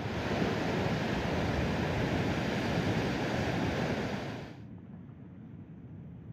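Steady rush of ocean surf breaking on a beach. It cuts off abruptly about four and a half seconds in, leaving a quieter low rumble.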